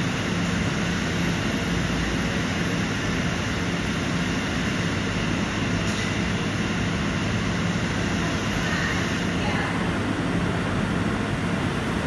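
Steady running noise heard inside a Taipei Metro Wenhu line rubber-tyred automated train as it travels along the elevated guideway: an even rumble with a low hum.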